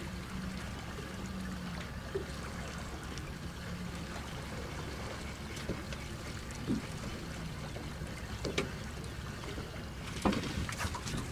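Water lapping against a small boat's hull under a steady wash of wind and water noise, with a faint low hum now and then. A few small knocks or splashes stand out, with a cluster of them near the end.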